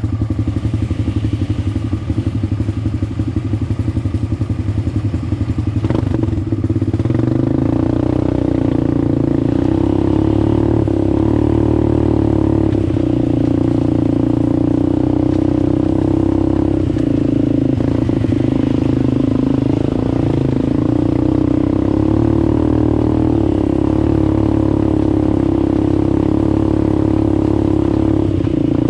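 ATV engine running, pulsing at lower revs at first, then picking up about seven seconds in and holding a steady, higher speed.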